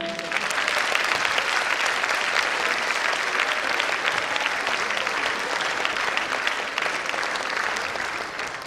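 Audience applauding as the folk-dance music ends: a steady patter of many hands clapping that starts to fade near the end.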